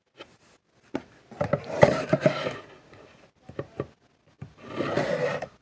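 A large plastic bottle being handled on a wooden tabletop: scattered knocks and rubbing, busiest about a second and a half in and again near the end.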